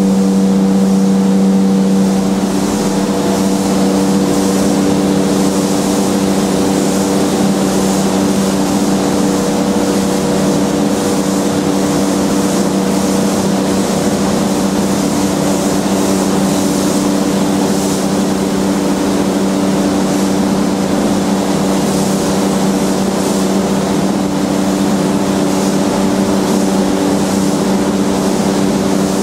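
Air compressor running steadily, with the hiss of compressed air from a spray gun that comes and goes as the gun is triggered.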